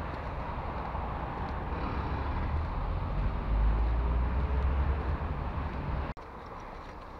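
Outdoor street traffic noise, a steady low rumble of passing vehicles that swells briefly, then cuts off abruptly about six seconds in and gives way to quieter outdoor background.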